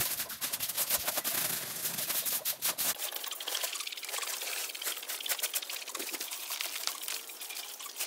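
Hand brooms sweeping dust and dirt off a dirt ground and the tops of wire cages: a steady run of quick, scratchy brushing strokes.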